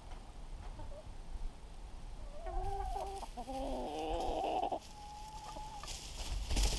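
A hen clucking and squawking in a short run of calls, then giving one held note, over a low outdoor rumble; a brief loud rustle near the end.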